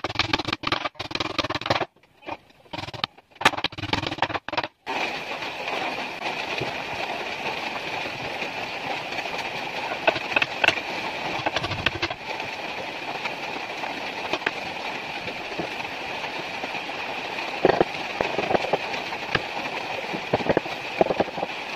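A few seconds of short, choppy sounds, then a woodworking power tool running steadily with a constant high whine and scattered clicks and rattles.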